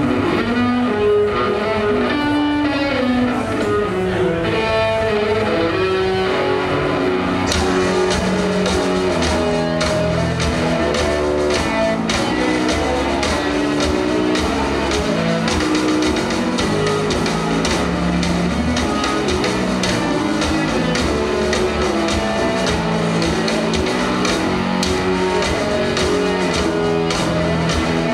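Rock band playing live: electric guitar riffing, with the drum kit crashing in about seven seconds in and pounding on from there.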